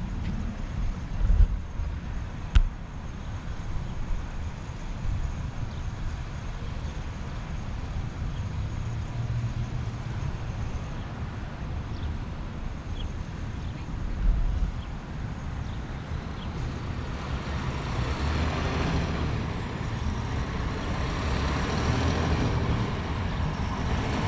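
Road traffic with a steady low rumble, and a tanker semi-truck approaching and growing louder over the last several seconds. A couple of sharp knocks sound in the first few seconds.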